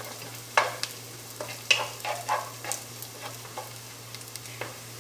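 Chopped onions frying in oil in a pan, stirred with a spoon or spatula: irregular scrapes and knocks against the pan over a faint sizzle. The onions, salted, are being sautéed and have just begun to turn golden.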